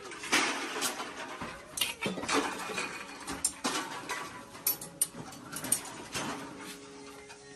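Metal being worked by hand: irregular scraping strokes with sharp clinks in between, about one every half second to second.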